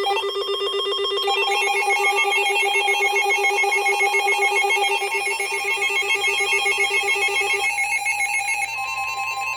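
Electronic weather-alert tones: several trilling tones sounding together, like a ringing phone. The mix of tones changes about a second in and again near the end, where a single steady tone joins in.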